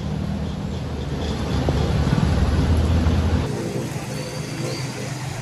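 Vehicle engine running with a steady low hum over the broad hiss of rain and water. A little over three seconds in, the sound cuts to a quieter hiss with faint tones.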